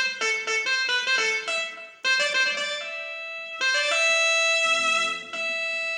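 Yamaha PSR-I500 keyboard playing a melody on its nadaswaram voice: a run of short notes, a brief break about two seconds in, then longer held notes.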